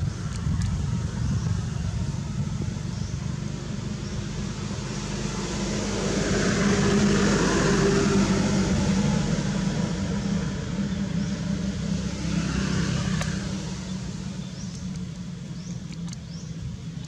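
A motor vehicle passing, its noise swelling and fading about halfway through over a steady low rumble.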